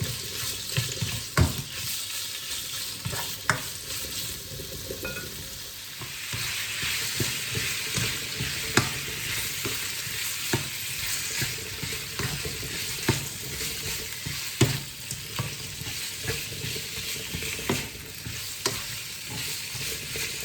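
Food sizzling and frying in a pan while it is stirred, with scattered sharp knocks of the utensil against the pan. The sizzle grows louder about six seconds in.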